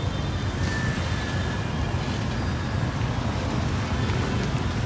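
Street traffic noise: motorbike and scooter engines running as they ride past, over a steady low rumble.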